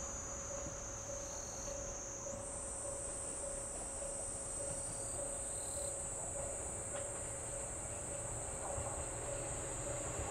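Steady shrill chorus of insects, with a single tone pulsing at an even rhythm beneath it. Near the end the low rumble of an approaching KiHa 85 diesel train begins to rise.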